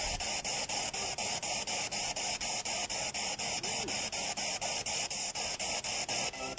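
Spirit box radio scanning through stations: a steady hiss of static chopped into short pieces about five times a second.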